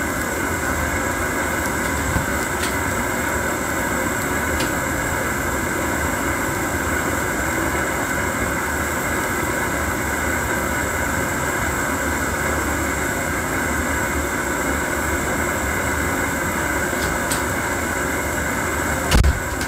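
Steady roar of a propane camp-stove burner running under a pan of simmering soup. A single low thump sounds near the end.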